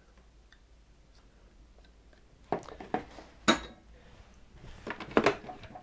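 Kitchen utensils being handled: a scatter of clinks and knocks as a food processor's blade and plastic bowl are handled, starting about two and a half seconds in, with the sharpest knock about a second later.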